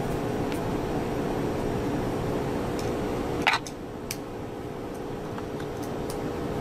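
Steady electrical hum of laboratory equipment fans, with a few small sharp metallic clicks and taps, the loudest about halfway through, as a small screwdriver works the mounting screws of a wafer probe's flange on a millimetre-wave module.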